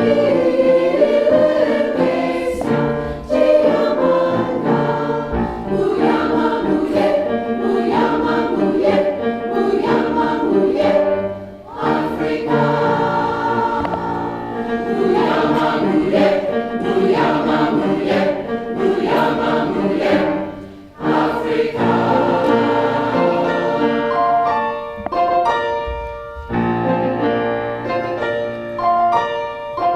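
Large mixed choir singing in harmony, with the words in Mende; the phrases break off briefly about twelve and twenty-one seconds in.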